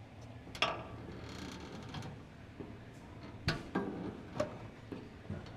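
A few separate light clicks and knocks as the door and its broken-welded hinge on a 1940 Ford convertible are handled, over a faint background hiss.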